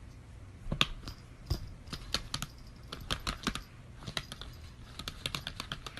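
An irregular run of short, sharp clicks and taps, a few a second, starting about a second in, over a low steady hum.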